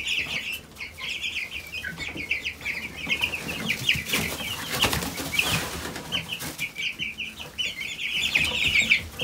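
A brood of young meat chicks peeping continuously: many short, high, overlapping cheeps, with scattered rustling as they move and feed in the wood shavings.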